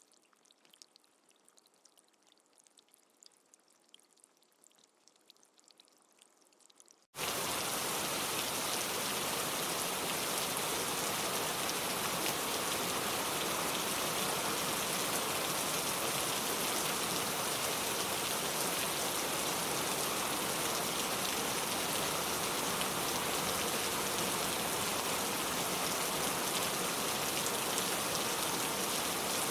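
Faint scattered drips of rain at first, then about seven seconds in an abrupt cut to loud, steady rain.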